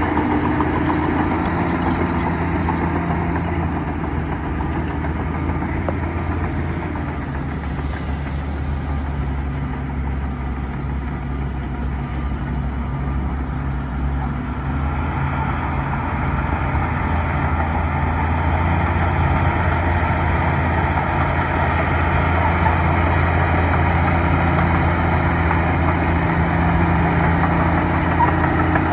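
Bulldozer's diesel engine running steadily, easing off a little about six seconds in and picking up again around fifteen seconds.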